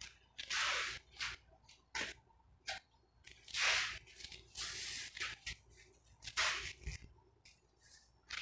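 A string of irregular short hissy rustles and scrapes, some brief and some about half a second long, from handling tools and materials close to the microphone.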